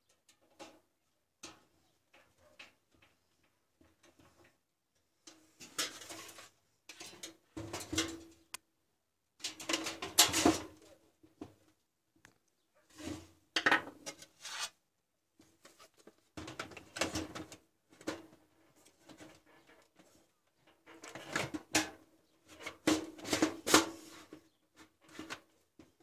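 Sheet-steel computer case and its plastic front bezel being handled and worked on: irregular clatter, knocks and scrapes in short bursts, some with a brief metallic ring.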